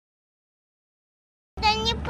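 Dead silence for about a second and a half, then a high-pitched voice comes in near the end.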